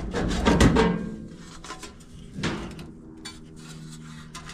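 Sheet-metal clattering and scraping as a dryer's heating element and its housing are worked loose, busiest in the first second, with a single clank about two and a half seconds in.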